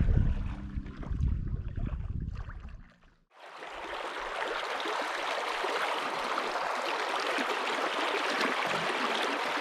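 A low rumble for about three seconds, then, after a brief break, a steady rush of flowing river water.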